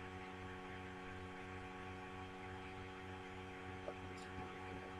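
Steady electrical hum made of several level tones, with a low throb pulsing a few times a second underneath. There is one faint click about four seconds in.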